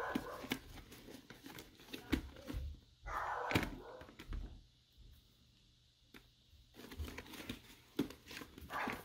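Rustling, crinkling and small clicks as the padded liner and snaps of a motorcycle helmet are handled and pulled loose, with a dog barking in the background.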